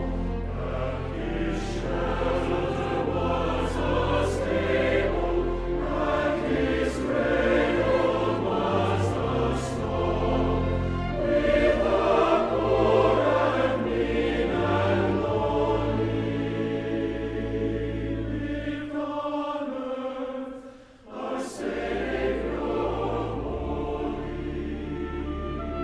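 Choir singing over a low, sustained instrumental accompaniment. About twenty seconds in the sound drops away briefly, then quieter music resumes.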